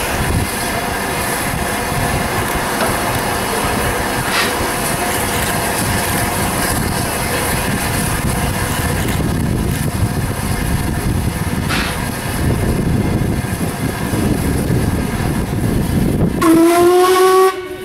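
A steam train running, a steady noise with a couple of faint clicks, then near the end one blast of a steam locomotive's whistle, its pitch rising slightly as it opens.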